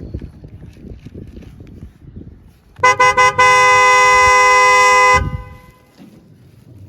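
Toy truck's electronic horn sound: three quick toots, then one long toot of about two seconds that cuts off sharply. Low rustling and knocking come before it.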